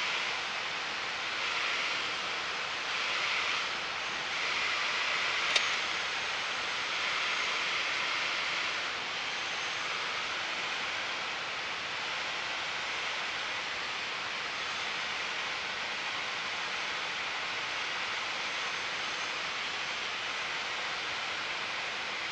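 Steady rushing noise of engine and airflow inside a Piper Warrior's cabin in descending flight. It swells a few times in the first several seconds, and one sharp click comes about five seconds in.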